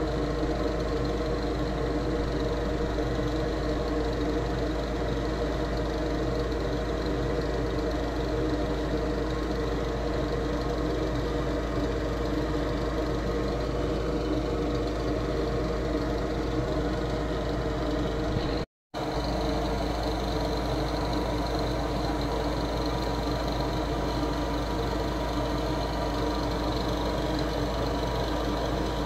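Steady mechanical hum with several low held tones over a constant rumble, unchanging except for a brief cut-out about two-thirds of the way through.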